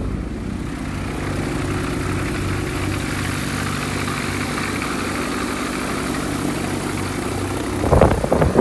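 Viking Honda conversion aircraft engine running steadily, turning its propeller during a tied-down static thrust run. Near the end, loud gusty wind noise on the microphone breaks in.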